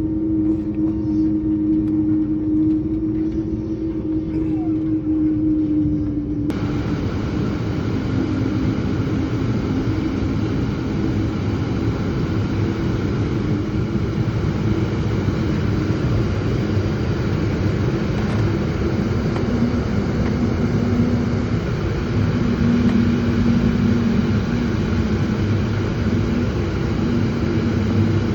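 Cabin noise of an Embraer E195-E2 on the ground before takeoff: its Pratt & Whitney geared turbofans running at low power with a steady rumble and a low hum. About six seconds in the sound abruptly turns rougher and fuller.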